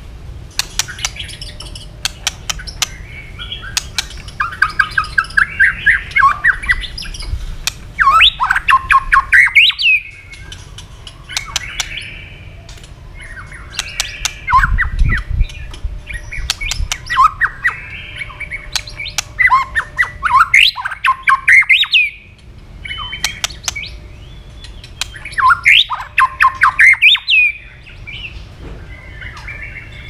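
White-rumped shama singing in loud bursts of fast repeated notes, about five phrases a few seconds apart, some sweeping upward in pitch, with sharp clicking tack notes between them.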